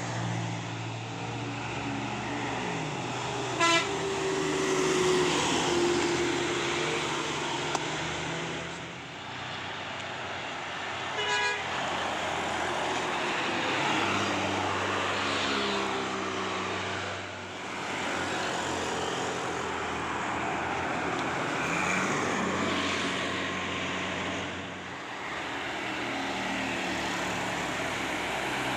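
Heavy bus diesel engines running under load on a hill climb, the engine note dipping and picking up several times. Two short horn blasts cut through, about four seconds in and again about eleven seconds in.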